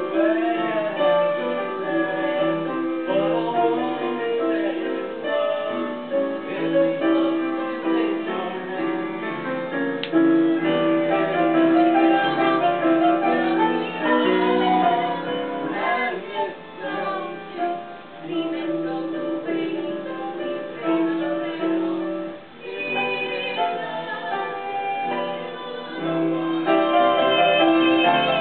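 Live musical-theatre singing with instrumental accompaniment, a woman's voice to the fore over held notes from the band.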